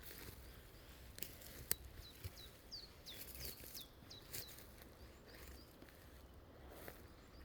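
A faint run of about eight short, high chirps, each sliding quickly downward in pitch, lasting about two and a half seconds, with a few sharp clicks just before it: a small animal calling, bird-like.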